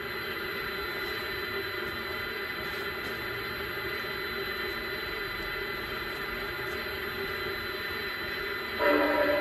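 PIKO G-scale Mogul model steam locomotive standing still and giving off a steady hiss and hum. Near the end a louder sound with several pitched tones sounding together starts suddenly.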